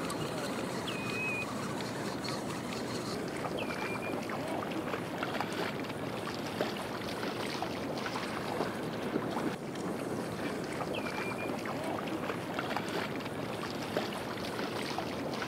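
Steady wash of sea water and wind noise with scattered light splashes, and a few short high whistles.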